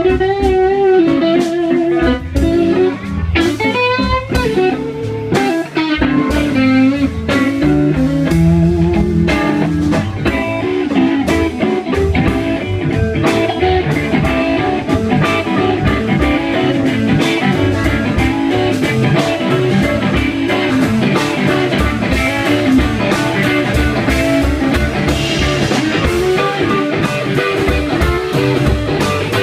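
Live blues band playing. An electric guitar lead carries bent, wavering notes over bass and drums, and the band gets denser and fuller after about six seconds.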